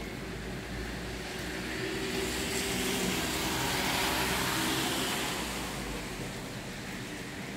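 A vehicle passing by, its noise swelling over about two seconds and fading again, over a steady background hiss.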